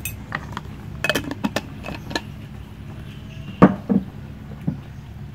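A spoon clinking and tapping against dishes while seasonings are scooped onto pork, in scattered sharp knocks, the two loudest a little past halfway and close together.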